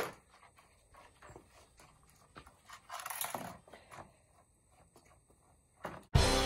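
Faint scrapes and clicks of handling, with a brief hiss about three seconds in; near the end, background music starts abruptly and loudly.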